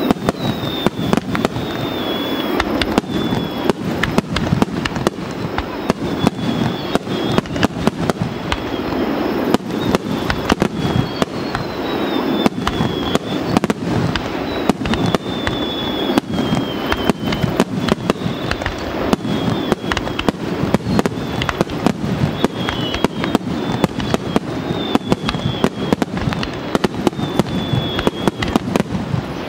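Finale star mine fireworks barrage: aerial shells launching and bursting in rapid succession, many bangs a second over a continuous crackle.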